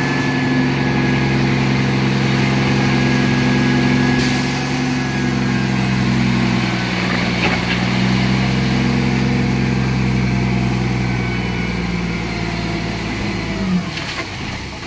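Truck's diesel engine running steadily to drive the hydraulic hoist as an end-dump semi-trailer tips and its load of soil slides off. The engine note shifts a little about halfway and drops away near the end, followed by a short knock.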